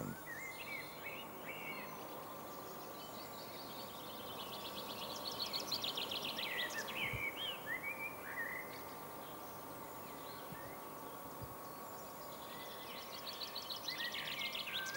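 Songbird singing twice: a long run of quick, high chirps that ends in a few lower, slurred notes, over a faint steady hum.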